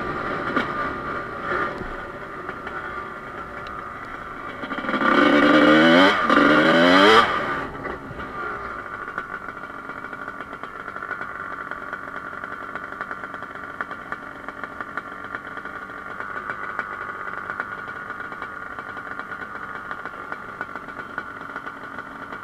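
Dirt bike engine accelerating hard, its pitch climbing several times in quick succession about five seconds in, then dropping back to a steady idle.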